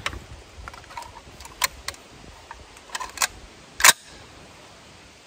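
Remington 7400 semi-automatic rifle being handled and loaded: a few small metallic clicks, then one loud metallic clack near four seconds in as the action is worked.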